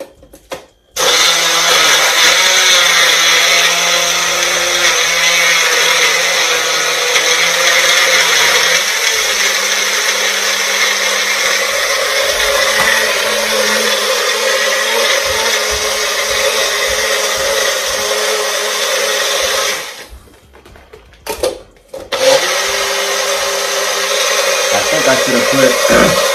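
Single-serve bullet-style blender running, crushing frozen popsicles with syrup into a slush. It starts about a second in and runs steadily, cuts out past the middle for a moment with a couple of short pulses, then runs again.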